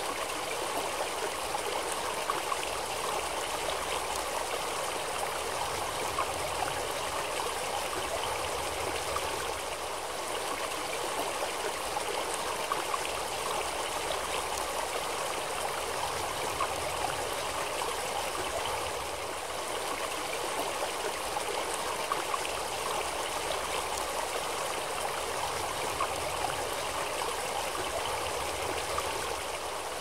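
A shallow stream running over rocks: a steady rush and babble of flowing water.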